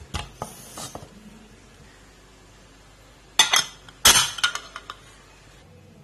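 Metal clinks as the whistle weight of an aluminium pressure cooker is set onto the lid's vent pipe: two quick clusters of sharp clinks a little past halfway, after a few softer knocks at the start.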